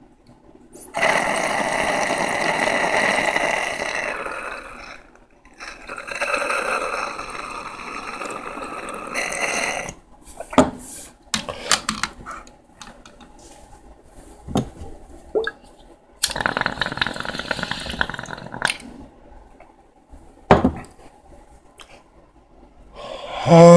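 Water bubbling in a glass dab rig as someone inhales through it: two long pulls of about three seconds each, then a shorter one later, with a few clicks between.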